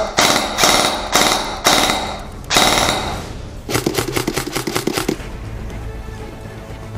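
Airsoft electric guns firing full-auto: several short bursts about half a second apart, then a longer rapid burst about four seconds in.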